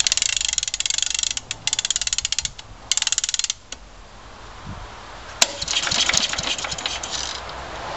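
Wind-up spring starter on a cold 1966 Briggs & Stratton 3.5 hp mower engine being cranked with the choke on: rapid clicking in three short bursts, a quieter pause, then another burst a few seconds later. The engine does not catch.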